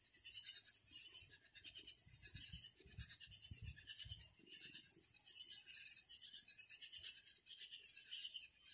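Night insects calling: a high, shrill, pulsing buzz in spells of about a second, repeating with short pauses. Soft low thumps sound in the first half as the phone is handled.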